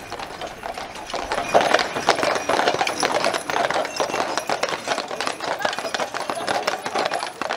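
Hooves of a team of heavy draught horses clip-clopping at a walk on an asphalt road, an uneven overlapping clatter that gets louder about a second and a half in.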